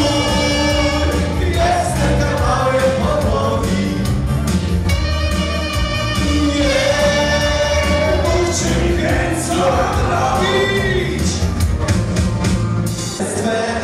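A live dance band plays a song: a male lead singer with keyboard, bass and drums, sung without a pause.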